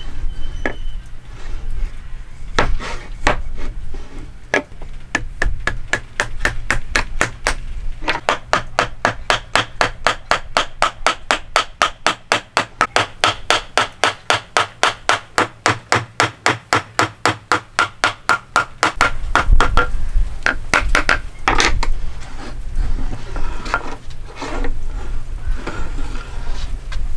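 Hammer striking wood in a steady run of about three to four blows a second, each with a short ringing tone that creeps up in pitch. It is framed by slower, irregular knocks at the start and heavier ones near the end.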